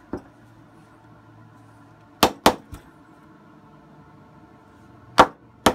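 Small hammer tapping a red-dot mount plate on a pistol slide to straighten its tilt. There is a pair of sharp taps a couple of seconds in, then a louder single tap and another near the end.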